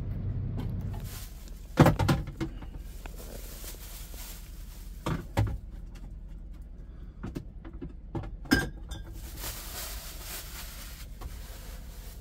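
Knocks and thumps of someone climbing into a semi-truck cab and setting down bags and gear, the loudest knock about two seconds in, with further knocks and rustling later, over a low steady hum.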